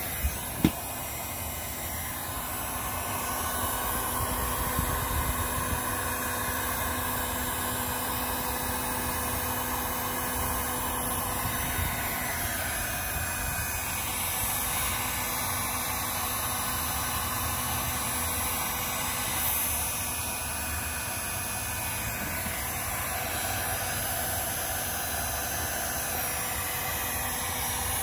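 Electric heat gun running steadily, its fan blowing with a faint steady hum, aimed at a muffler repair wrap to heat the patch. A sharp click comes less than a second in.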